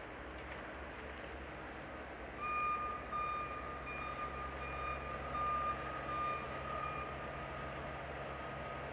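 A vehicle's reversing alarm beeping repeatedly at about two beeps a second, starting a couple of seconds in, over a steady low engine rumble and street noise.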